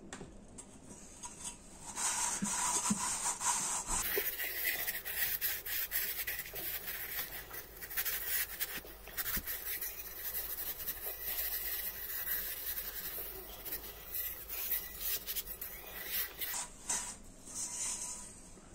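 Cloth rubbing hard on a copper bowl, polishing off its dark oxide tarnish: a steady scratchy scrubbing that starts about two seconds in and dies away shortly before the end.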